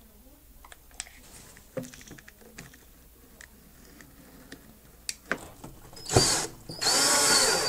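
Small scattered clicks and taps of parts being handled, then a cordless drill running: a short burst about six seconds in, followed by a longer steady run with a high whine near the end.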